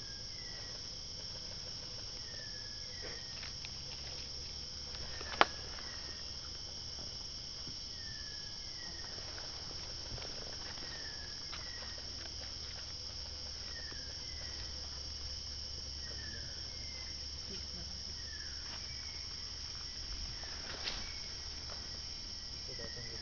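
Steady high-pitched drone of a tropical forest insect chorus, with short falling whistled notes repeating every second or two over it. A single sharp snap stands out about five seconds in.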